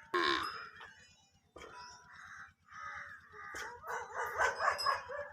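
Animal calls: a loud cry with a falling pitch at the start, then a run of shorter calls that grow quicker and pulsing near the end.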